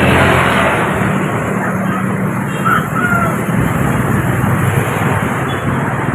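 Motor vehicle engine passing close by over steady street traffic noise, loudest at the start and easing off.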